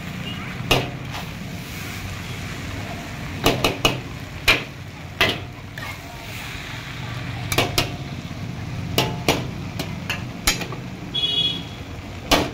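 Steel ladle clanging and scraping against a large iron wok as noodles are tossed and stirred: about a dozen sharp, irregular metal strikes over a steady low hum.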